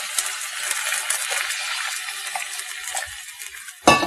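Water poured into a hot clay pot of fried onion-tomato masala, hissing and sizzling as it hits the pan. The hiss fades after about three seconds, and a single sharp knock follows near the end.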